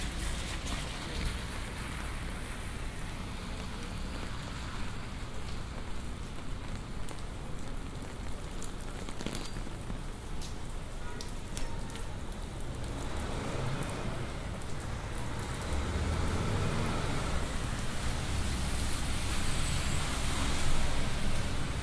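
Rain pattering on an umbrella: a steady hiss with many sharp drop clicks over a low city rumble. A broad swell of noise builds from about halfway and is loudest near the end.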